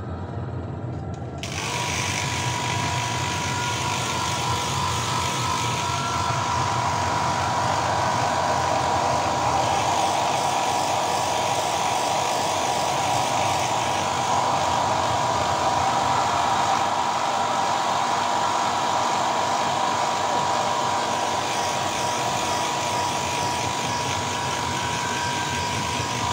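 A steady electric motor running with a rush of air and a constant high whine, starting about a second and a half in.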